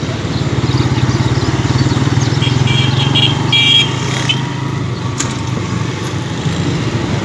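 Motorcycle engine running steadily as the bike is ridden, a rapid low putter heard from the rider's seat. A few short high beeps sound about three seconds in.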